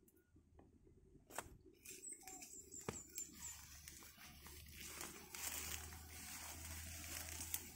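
Footsteps through dense fern undergrowth, fronds and leaves rustling as they brush past, with a couple of sharp snaps in the first three seconds. The rustling grows steadier and louder from about two seconds in.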